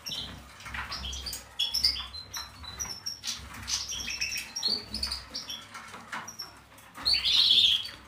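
Small caged birds chirping in many short, high calls, with a denser, louder run of calls near the end. Light rustling and clicking of paper being handled comes through between the calls.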